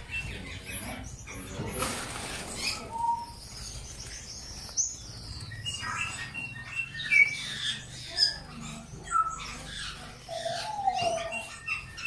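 A roomful of caged canaries chirping and twittering: many short overlapping calls and quick rising and falling notes, with a brief rush of noise about two seconds in.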